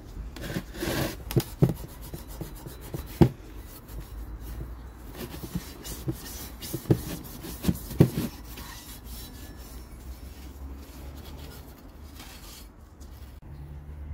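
Green abrasive scouring pad rubbing over a rusty steel motorcycle engine guard, scrubbing off loose rust in uneven strokes, with several sharp knocks along the way. The scrubbing fades after about eight seconds.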